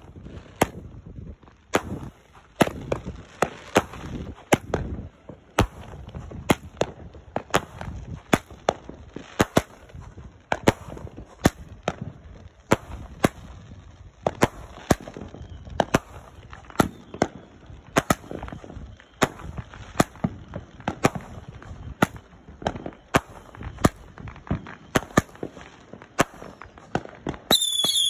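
Aerial fireworks going off: a steady, irregular string of sharp bangs as shells burst, about one or two a second, with a low rumble between them. Near the end, high whistles falling in pitch start up as new shells rise.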